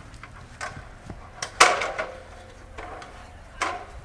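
Aluminium ladder knocking against a steel scaffold tower as it is stood up and placed: several sharp clanks with a short ring after each, the loudest about one and a half seconds in.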